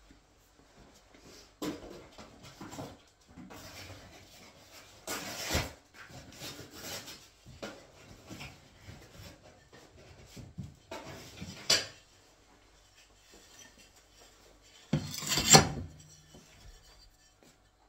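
Tiling trowel scraping tile adhesive in a run of uneven strokes, then a quieter pause and one louder scrape near the end.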